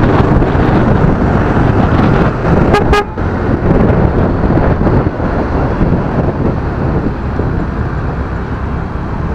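Motorcycle riding through traffic: a steady loud rush of wind and road noise over the engine on a handlebar-mounted microphone, with a brief horn toot about three seconds in.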